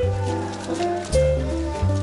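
Background music: a melody of held notes over a bass line that moves to a new note about every second, with faint ticking percussion.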